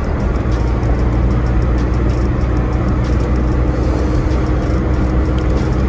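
Engine and road noise inside the cabin of a Suzuki car cruising on a highway: a steady low engine drone under an even rush of tyre and wind noise.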